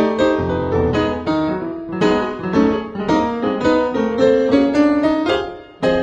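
Background piano music: struck notes and chords in a flowing melody, fading briefly just before a new phrase starts near the end.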